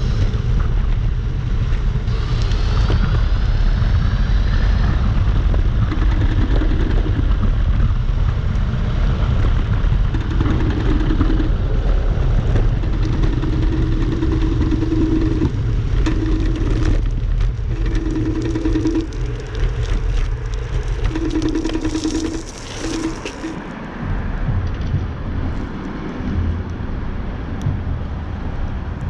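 Electric scooter being ridden, with heavy wind and road rumble on the microphone. The hub motor whines, rising in pitch as it speeds up in the first few seconds. Shorter steady motor hums come and go after that.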